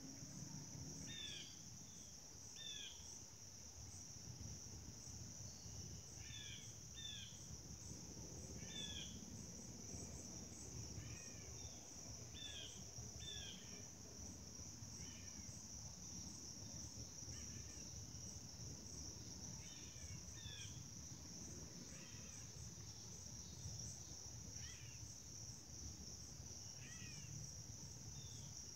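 Faint evening insect chorus, a steady high-pitched trill throughout. A bird gives short, falling chirps, often in pairs, every few seconds, over a low background rumble.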